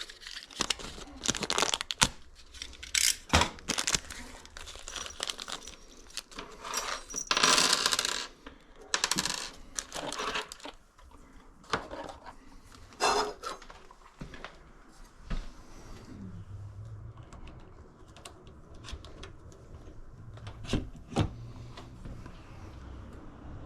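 Small metal parts and tools clinking and clattering as they are handled, with many sharp clicks in the first two-thirds. A low steady hum sets in over the second half.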